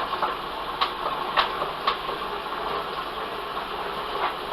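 Steady background hum with three sharp clicks or taps in the first two seconds.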